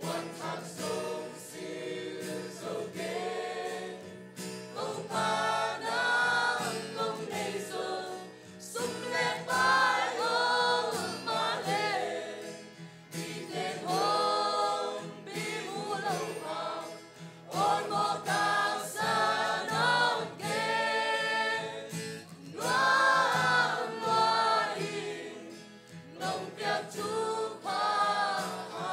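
Mixed choir of young men and women singing a Zomi-language hymn together, in phrases with brief breaths between them.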